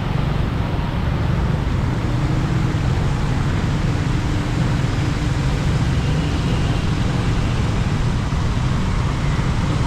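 Steady road traffic noise with a heavy low rumble and no distinct events.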